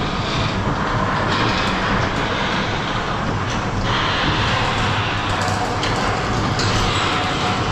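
Garage door opener closing a sectional garage door: a steady mechanical rumble of the motor drive and the door panels running down their tracks.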